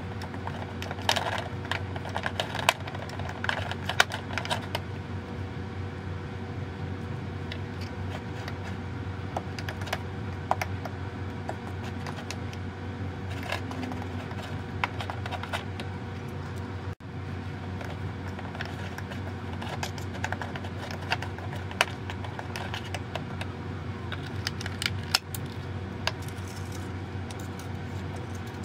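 Spoons and bowls clinking and tapping now and then during kitchen baking work, over a steady low hum. The sound drops out for an instant just past halfway.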